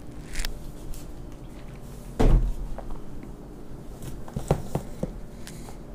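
Plastic gallon jug of coolant set down on a wooden table with a dull thump about two seconds in, followed by a few lighter knocks and clicks as it is shifted into place.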